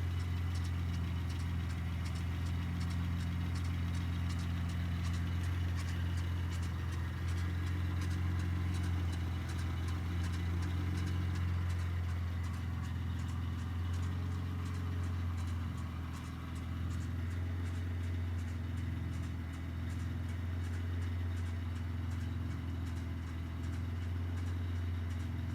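Mitsubishi 3000GT's 3.0 V6 idling on a cold start, a steady low hum with a fast, regular ticking noise from the engine over it.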